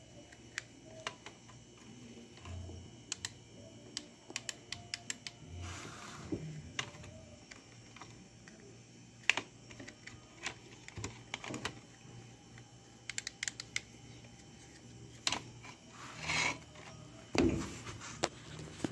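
Irregular small clicks and taps of hands handling a plastic clamp meter and a refrigerator defrost timer, some in quick runs, with a heavier thump near the end.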